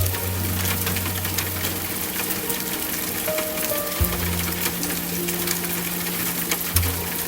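Steady rain falling, an even hiss with fine crackling patter, under soft slow instrumental music: low held notes that change about four seconds in, with a few sparse held notes above.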